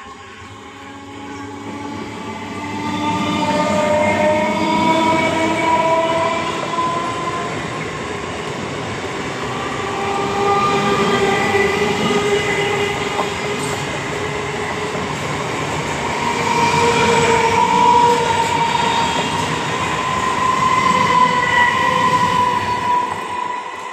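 An electric multiple unit (EMU) local train approaches and passes close by. Its running noise builds over the first few seconds, stays loud with a wavering whine as the coaches go by, and drops off near the end as the last coach passes.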